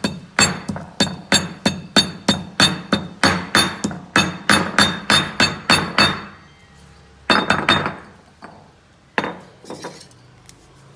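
Pestle pounding herb leaves in a stone mortar, a steady run of sharp strikes about three a second that stops about six seconds in. After a short pause a brief second run of strikes follows, then a few lighter knocks near the end.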